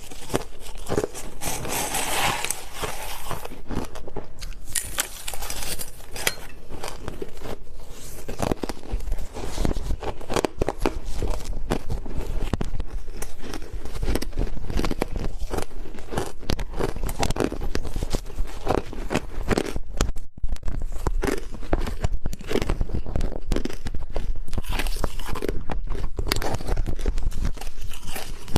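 Close-miked biting and chewing of hard crushed ice: a dense run of loud, irregular crunches and crackles, with no pause.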